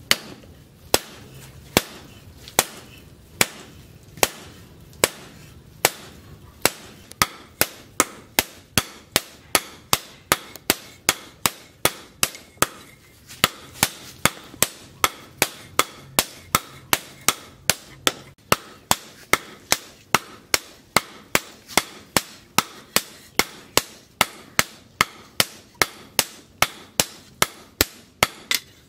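Hand hammer striking a steel blade on an anvil in a steady rhythm as a machete is forged from plough-disc steel. The blows come about once a second at first, then speed up to two or three a second after about six seconds, each a sharp ringing clang.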